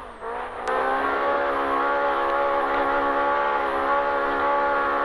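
Polaris RZR Pro R's four-cylinder engine under power, held at steady revs as a continuous pitched drone. The revs dip briefly at the start, and a single sharp knock comes just before the engine pulls back up and holds.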